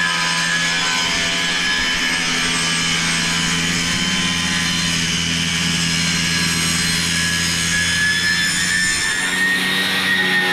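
Power saw running steadily through a long cut. It has a junk blade that smokes as it cuts.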